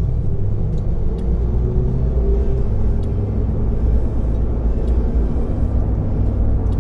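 Cabin sound of a Mazda MX-5 Miata on the move: a steady low rumble of engine and road with a faint wavering drone and a few light clicks. The car is vibrating and humming, with the wheels shaking, on a build the driver calls still unfinished and rather noisy.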